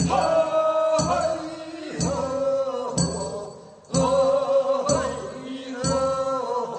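Korean funeral bier song (sangyeo-sori) from Gyeongsang province: voices singing long held notes, with a sharp beat struck roughly once a second.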